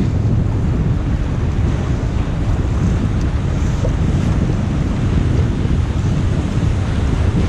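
Steady wind rumbling on the microphone over the wash of water around a kayak being paddled.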